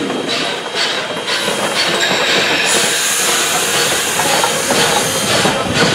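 Steam-hauled passenger train passing close by, its wheels clacking over the rail joints in irregular knocks. A high hiss joins from about three seconds in.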